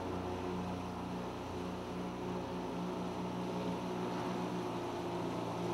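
Jet boat's engine running steadily, a low even hum.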